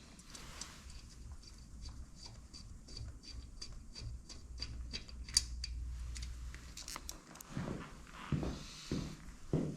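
A run of even ratcheting clicks, about four a second for roughly four seconds, followed near the end by a few soft knocks and rustles of hand work on the motorcycle.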